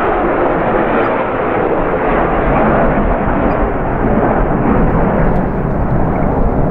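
A pair of military combat jets flying past: a loud, steady jet roar that grows deeper toward the end as they fly away.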